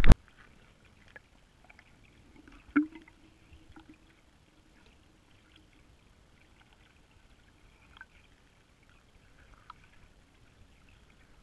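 Muffled, faint underwater sound picked up through a GoPro's waterproof housing. About three seconds in there is one sharp knock with a short low ring, and a few light ticks scattered through the rest.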